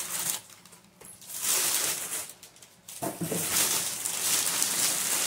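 Clear plastic sleeve around a solar panel briefcase rustling and crinkling as the panel is dragged out of its box, in two long stretches with a short break between them.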